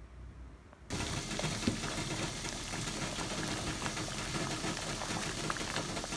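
Pot of water at a rolling boil, bubbling and popping steadily in a dense crackle, starting suddenly about a second in.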